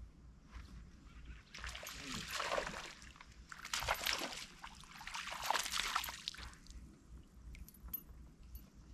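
Small bass splashing and thrashing at the water's surface on the end of the line as it is reeled to the boat, in three bursts of splashing over about five seconds.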